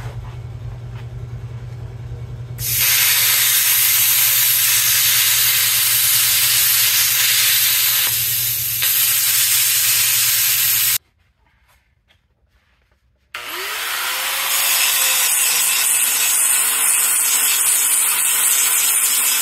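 Plasma cutter cutting into the cast-iron centre section of a Super Duty Dana 60 axle housing: a steady hum, then a loud even hiss from about three seconds in, which stops suddenly after about eight seconds. After a short silence an angle grinder spins up with a rising whine and grinds on the steel axle tube.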